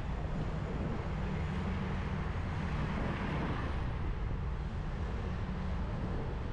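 Steady low rumble of wind and road on a bicycle-mounted camera riding through city traffic, with the noise of surrounding cars; the traffic noise swells briefly about three seconds in.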